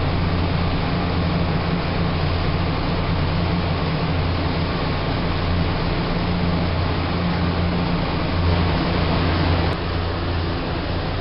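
Steady machinery hum and rush of dairy barn ventilation fans, dropping slightly in level near the end.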